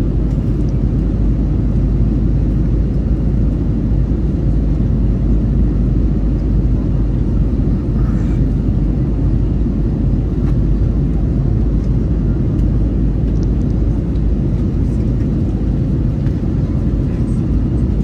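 Steady low rumble of an Airbus A321's engines and rushing air, heard inside the passenger cabin.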